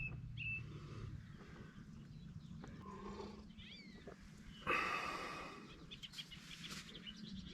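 Scattered bird chirps and short sweeping calls, with one louder, harsh animal call lasting about half a second roughly five seconds in.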